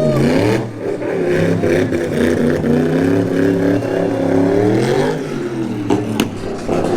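V8 engine in a Toyota Corolla running and being revved, its pitch rising and falling; one rev climbs about five seconds in and drops back. A short sharp click comes near the end.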